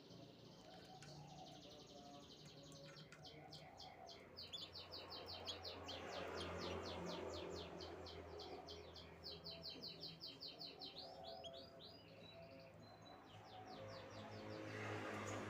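Canary singing faintly: fast trilled runs of high repeated notes, about ten a second, that change speed and pitch from run to run.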